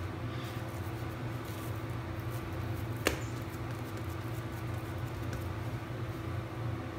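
Steady low hum of room tone with a faint steady tone above it, and one short sharp click about three seconds in.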